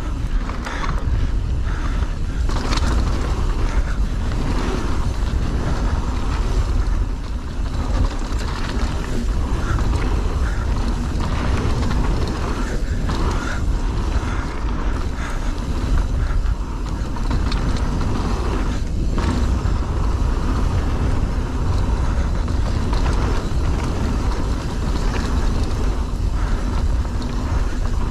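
Enduro mountain bike ridden fast down a rough bike-park trail: constant clattering and rattling of the bike over roots and rocks, with many sharp knocks, over a steady low rumble of wind on the microphone.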